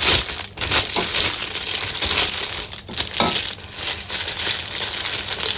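Clear plastic bag crinkling steadily as it is pulled and crumpled off a cake by hand, with a few sharper crackles.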